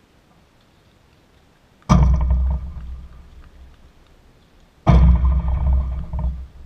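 Two loud, sudden knocks about three seconds apart, each followed by a ringing, rumbling tail that dies away over a second or so.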